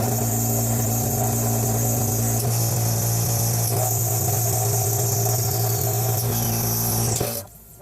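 CNC machine running steadily while machining an enclosure, with a strong low hum and a high hiss. It starts abruptly and cuts off abruptly near the end.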